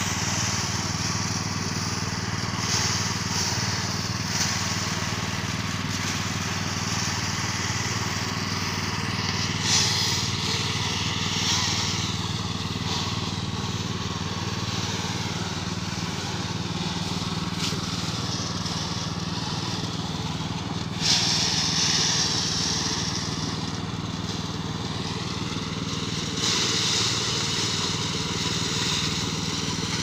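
Engine-driven portable rice thresher running steadily, with bursts of rustling and crunching as bundles of rice stalks are fed into its threshing drum. The loudest burst comes about twenty-one seconds in, and another runs near the end.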